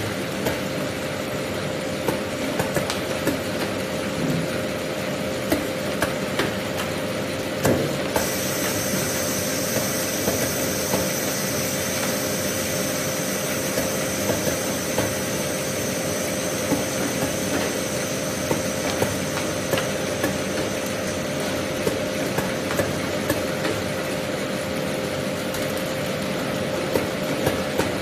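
Fish weighing and sorting conveyor (DHWS600×200-6, six grades) running: a steady machine hum with frequent irregular clacks and knocks as fish go down the line and the diverter arms swing. A faint high whine joins about a third of the way through.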